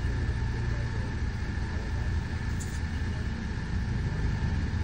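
2019 Blue Bird Vision school bus idling, a steady low rumble.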